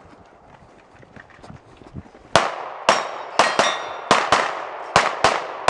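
A quick string of pistol shots, about nine, starting a little over two seconds in, with steel targets ringing briefly after hits.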